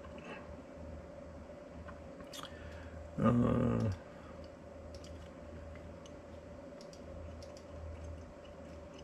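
Faint scattered clicks of a computer mouse over a steady low hum. About three seconds in, a man gives a short hummed 'mm' lasting under a second.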